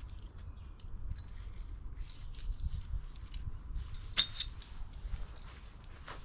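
Tent pegs being handled and pushed into the ground while a tent footprint is pegged out: irregular rubbing and scraping, with a few sharp metallic clinks, the loudest about four seconds in. A low wind rumble runs underneath on the microphone.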